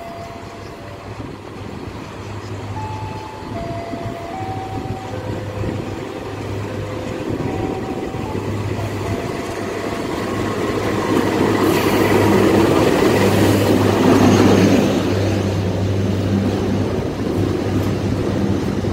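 Diesel locomotive of a passenger train arriving along a station platform: its low engine hum and rumble grow louder as it approaches, peaking with a rush of wheel and engine noise as it passes about two-thirds of the way through, then the coaches keep rolling by.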